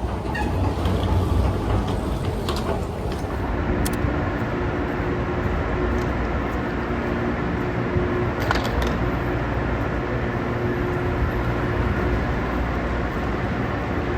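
Ride inside a moving airport transit vehicle: a steady low rumble, with a steady motor hum coming in a few seconds in and a brief rattle around the middle.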